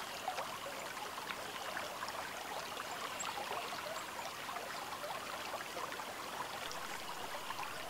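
Steady, low hiss of background noise, like faint running water, with scattered faint ticks.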